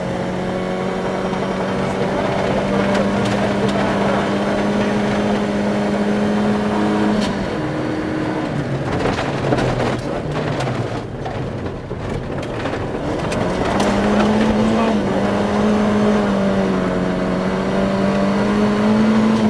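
Volvo 240 rally car's four-cylinder engine heard from inside the cabin, held steady at high revs on gravel. About seven seconds in the revs drop and wander lower for several seconds while stones clatter against the underside of the car. The revs then climb back and hold high again.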